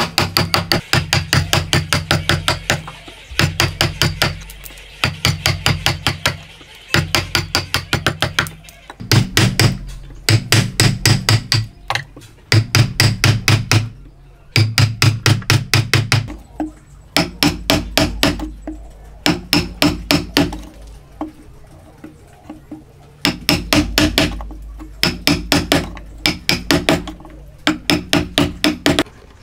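A steel wood chisel struck rapidly on its handle, chopping out a joint in a wooden beam: quick sharp knocks in bursts of a second or more, with short pauses between bursts.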